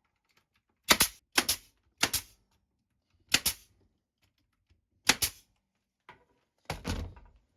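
Staple gun firing staples into the wooden bottom bars of Langstroth hive frames, one shot after another, about six in all. Each shot is a sharp double snap.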